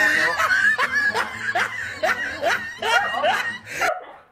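A person laughing: a long run of short 'ha' laughs, about two to three a second, cut off abruptly near the end.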